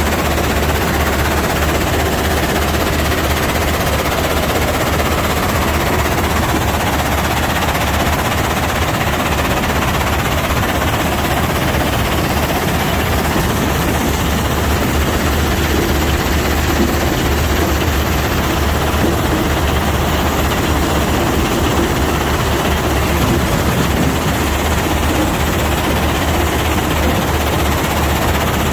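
A mobile rock-crushing and screening plant, a McCloskey R155 vibrating screener and a Lippmann impact crusher, running under load on lime rock. It makes a loud, steady, dense clatter of stone over a constant low machine hum.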